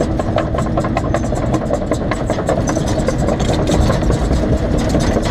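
Excavator's diesel engine running steadily under load, with many short sharp clicks and snaps over the rumble.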